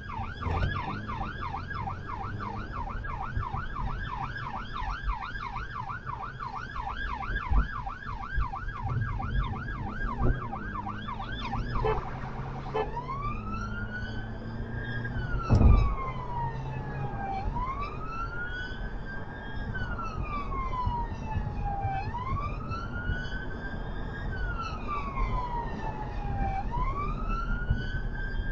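An emergency ambulance response car's electronic siren heard from inside the car while it answers a 999 call, over low road rumble. It runs a fast yelp, about two or three sweeps a second, then about twelve seconds in switches to a slow wail that rises and falls every four to five seconds. A single loud thump comes about halfway through.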